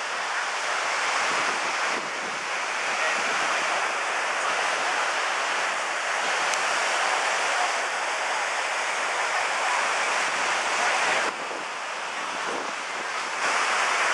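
Ocean surf breaking and washing up a sandy beach, a steady rushing noise with wind on the microphone. It eases about eleven seconds in, then swells again near the end.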